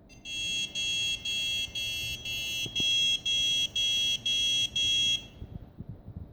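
Motherboard buzzer on a Huanan X79 board sounding a run of about ten high-pitched beeps, about two a second with short gaps, stopping about five seconds in: a POST error beep code from a board that fails to start.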